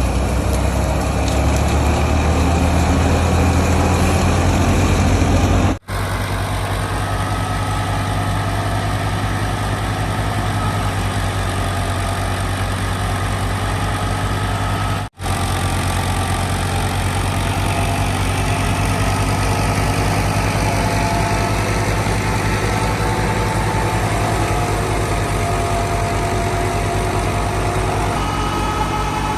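Alghazi tractor's diesel engine running steadily, driving a wheat thresher, with a steady higher tone over the low engine drone. The sound cuts out for an instant twice.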